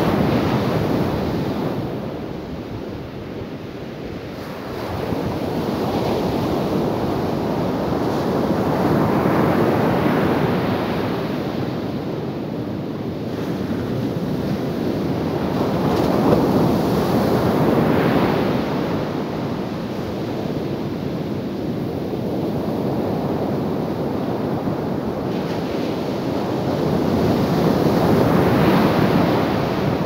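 Ocean surf breaking and washing up a sandy beach, a steady rush that swells and eases as each wave comes in, several seconds apart.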